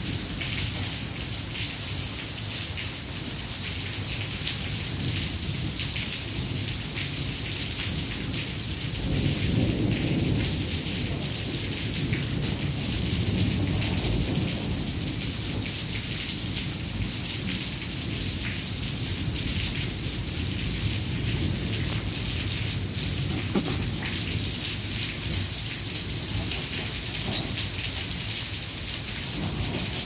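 Thunderstorm: steady rain falling, with a low rumble of thunder that swells about a third of the way in and dies away over several seconds.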